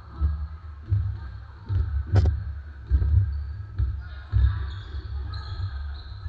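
Basketball being dribbled on a hardwood gym floor: repeated low thumps, roughly two a second at uneven spacing, with one sharper knock about two seconds in.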